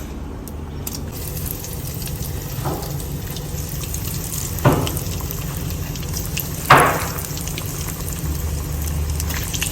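Flour-coated chicken pieces frying in hot oil in a pot, a steady sizzle. Two sharp short sounds cut through it about five and seven seconds in, the second the loudest.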